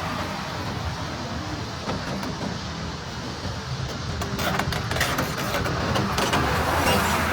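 Kobelco hydraulic excavator's diesel engine running steadily, with scraping and clatter that grow louder from about four and a half seconds in.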